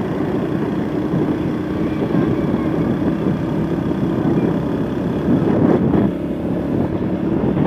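Steady engine hum and road noise of a moving vehicle, heard from on board, swelling briefly a little before six seconds in.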